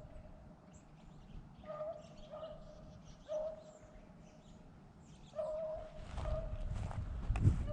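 Distant hound baying on a rabbit's trail: several short, evenly pitched bays spread out with gaps between them. From about six seconds in, a louder rustling, thumping noise close to the microphone covers them.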